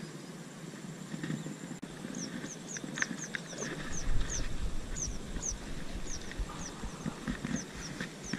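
A topwater popper being worked across a canal, giving short pops and clicks. From about two seconds in, short high falling chirps repeat every half second or so, and a low rumble comes in about four seconds in.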